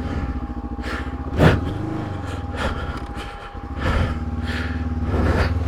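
Honda CB500X's parallel-twin engine running at low revs off-road, the revs rising and falling with the throttle. Two sharp knocks, about one and a half seconds in and near four seconds, stand out above the engine.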